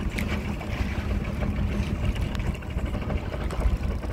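Small fishing boat's engine running steadily at low revs, a low rumble with a steady hum for the first couple of seconds, along with buffeting on the microphone.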